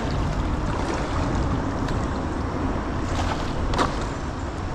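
Steady rushing noise outdoors on a creek, heaviest in the low end, with a couple of faint knocks about three and four seconds in.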